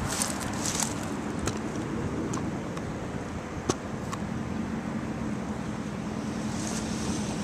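Road traffic: cars passing and engines running, with a steady low engine hum setting in about halfway. A few scattered sharp clicks come in the first four seconds.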